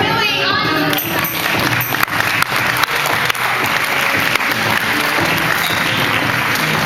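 Audience applauding, taking over from the music about a second in.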